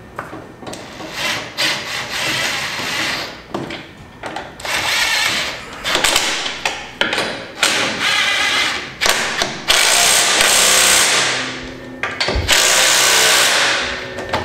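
Cordless impact wrench running the lug nuts onto a side-by-side's wheel: a string of short bursts, then two longer runs of about a second and a half each near the end.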